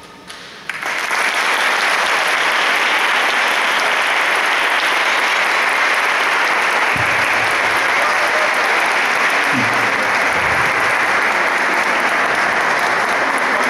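Audience applauding, breaking out suddenly about a second in and holding steady, with a few voices calling out in the middle.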